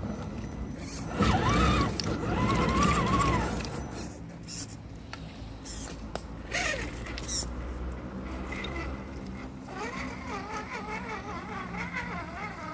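Small electric motor and gears of an RC crawler whining as it drives over creek stones and through shallow water. The pitch rises and falls with the throttle, loudest in the first few seconds, with scattered clicks of tyres on rock in the middle.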